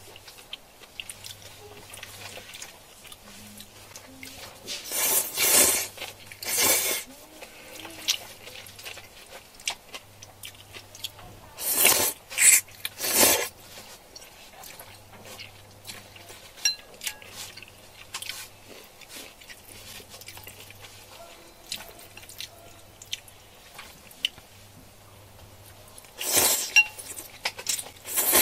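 Close-up eating sounds: utensils clinking on a bowl with small clicks of chewing and handling, broken by loud, short, rushing bursts of noise about five, twelve and twenty-six seconds in.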